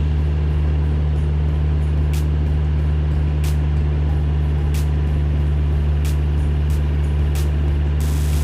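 An engine running steadily at idle, a constant low drone, with faint sharp ticks at an even pace of about one every second and a bit.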